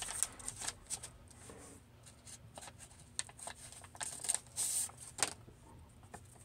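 Pokémon trading cards and their paper pack being handled: short rustles and sharp clicks of paper and card, with a louder rustling burst about four seconds in.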